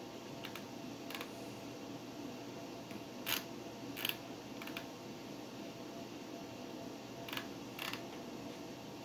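Old desktop PC running, its fans giving a quiet steady hum, with a handful of short sharp clicks scattered over it; the two loudest come about three and four seconds in.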